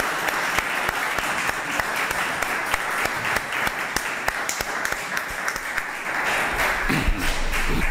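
Audience applauding: many hands clapping steadily throughout.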